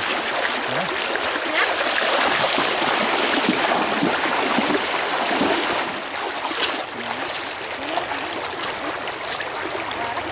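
Shallow stream water running over stones, a steady rushing, with the hands working in it; the sound drops to a quieter flow about six seconds in.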